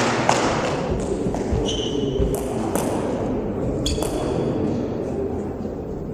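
Table tennis sounds in a reverberant sports hall: a ball clicks sharply once near the start and faintly a few times after. Two short high-pitched squeaks come about two and four seconds in, over a steady murmur of the hall.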